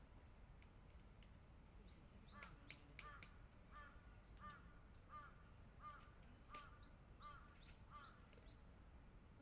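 Faint bird calling: a series of about nine short calls, evenly spaced a little under a second apart, starting about two seconds in.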